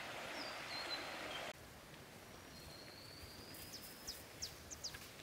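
Flowing river water, a steady hiss, with a bird calling over it, which cuts off suddenly about a second and a half in. After that, quieter birdsong: one long thin whistle, then several quick falling chirps.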